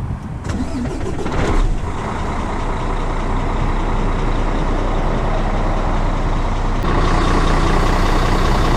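KamAZ truck's diesel engine starting about a second and a half in, then running at idle to build air pressure. It gets slightly louder and hissier near the end.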